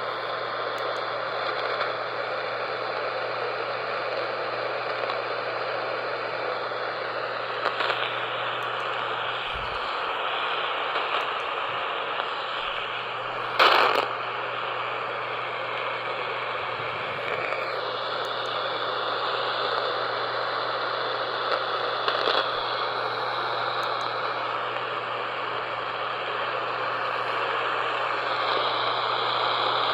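Weak AM radio reception: steady static hiss over a low hum, with the station's audio too faint to make out. There is a sharp crackle about fourteen seconds in.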